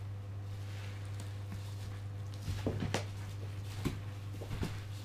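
Bubble wrap around a large cardboard box crinkling and crackling as the box is handled and tipped onto its side, with a few sharp crackles in the second half over a steady low hum.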